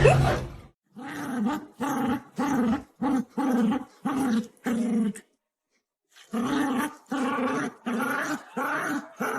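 A dog vocalising in a run of short, pitched calls, each rising and falling in pitch, about one every 0.7 seconds. There are two series of about six calls each, with a pause of about a second halfway through.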